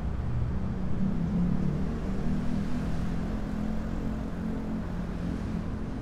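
Steady low engine drone with a wavering hum, easing slowly near the end.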